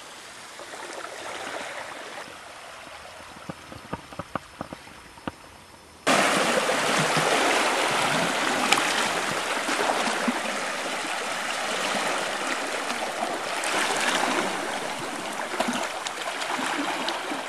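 Sea water lapping quietly with a few small clicks, then from about six seconds in, much louder waves washing and splashing among shore rocks.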